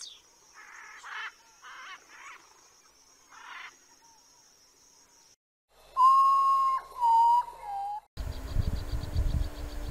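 Short bird calls over a steady high hiss, then three clear whistled notes, each a little lower than the one before. At about eight seconds the sound cuts to an outdoor recording with a low rumble and a fast, faint high ticking.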